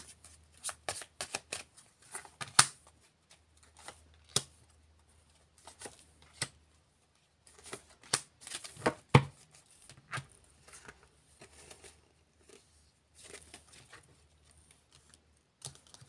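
Oracle cards being handled and dealt one by one onto a table: irregular flicks, slaps and taps of the card edges. The loudest tap comes about nine seconds in.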